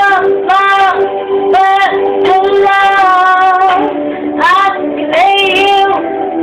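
A woman singing long, drawn-out notes that bend and slide in pitch over an instrumental beat.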